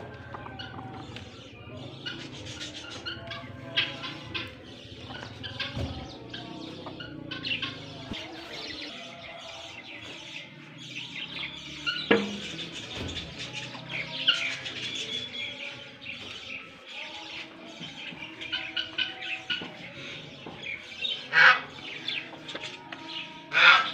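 Small birds chirping continuously, with hens clucking now and then. A few sharp knocks stand out, one about halfway through and two louder ones near the end.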